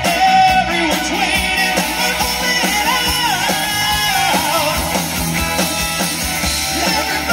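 Live rock band playing loud: a singer over electric guitars, bass and drums.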